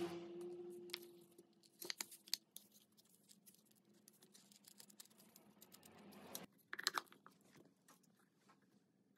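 Faint handling noises from hands fitting small metal hardware into a walnut lamp base on a paper towel: scattered small clicks and rustles, with a louder cluster of clicks about two seconds in and again near seven seconds.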